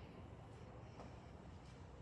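Near silence: faint low room hum, with a faint click about a second in.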